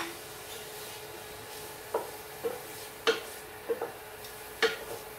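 A spatula stirring garlic and onions in a stainless steel pot, knocking sharply against the pot several times in the second half, over a faint steady sizzle of frying in oil and a steady hum.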